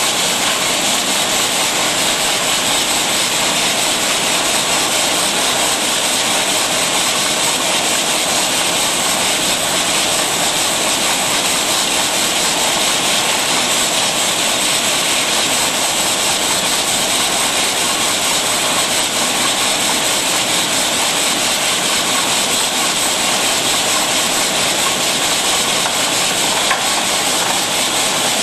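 Rotary bottle filling and capping machine running: a steady, even hiss and whir that does not change.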